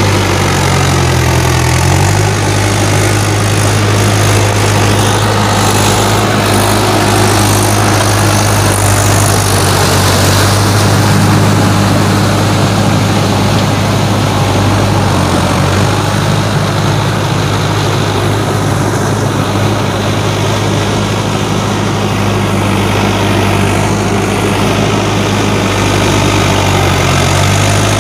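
Swaraj tractor's diesel engine running steadily as it pulls cage wheels through a flooded paddy field, its note shifting briefly now and then.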